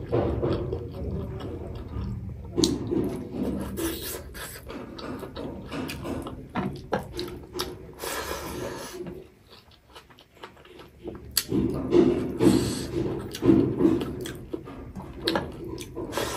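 Close-miked chewing and mouth smacking from a mouthful of rice and chicken curry eaten by hand, with many small wet clicks and a short lull partway through.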